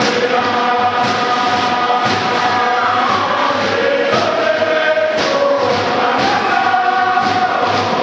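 A large Tokelauan fatele group singing together, many voices in unison, with a steady beat of hand-claps underneath.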